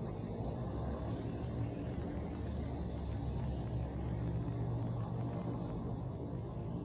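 Low, steady engine hum of a motor vehicle running, swelling a little midway.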